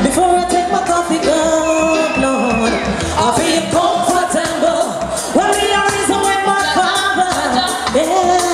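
A woman singing live over a reggae riddim played on a sound system, with a steady drum beat under the voice.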